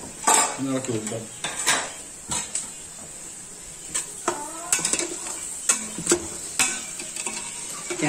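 A metal spatula scraping and clinking against the inside of an aluminium pressure cooker, stirring sliced onions as they fry in oil, with a steady sizzle underneath. The scrapes come irregularly, several times over the few seconds.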